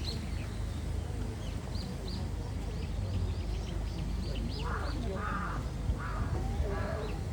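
Small birds chirping repeatedly. About halfway through, a larger bird starts a run of five harsh, rasping calls at roughly two a second. A steady low background rumble runs underneath.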